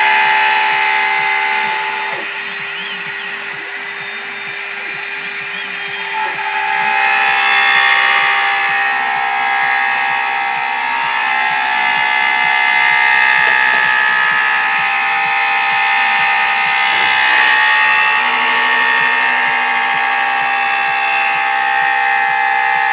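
Homemade CNC machine running, its motors whining in several steady tones that shift in pitch and loudness as it moves; it runs quieter for a few seconds starting about two seconds in.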